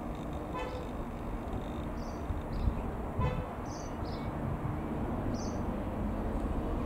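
Distant single-piston-engine Robin R3000 light aircraft passing overhead, a steady low drone. Two brief toots come about half a second and three seconds in, and short high chirps sound over it every second or so.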